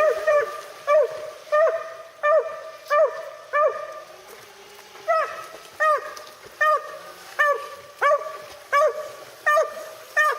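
A hound barking over and over, about one and a half barks a second, with a brief pause near the middle.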